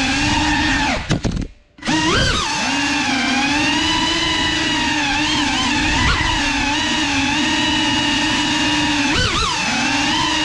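A GEPRC CineLog35 cinewhoop's motors and ducted props whine steadily in flight. About a second in the throttle is chopped and the whine drops almost to nothing, then surges back with a quick rise in pitch. It swoops up and down in pitch again near the end.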